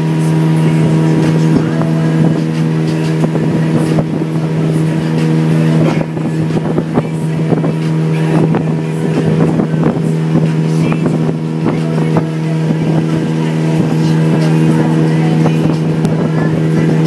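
Ferry boat's engine running steadily at cruising speed with an even, low hum.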